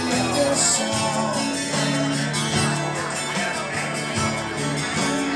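Live music from a solo performer playing acoustic guitar, running steadily.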